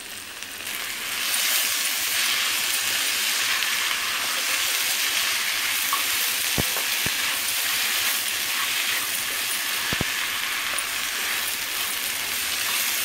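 Mutton, spices and chopped gongura (sorrel) leaves sizzling as they fry in a hot pan, the sizzle growing louder about a second in as the leaves go in and are stirred; two faint clicks in the middle.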